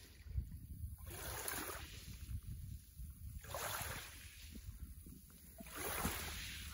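Small, gentle waves lapping onto a fine pebble beach, washing in three times about two seconds apart.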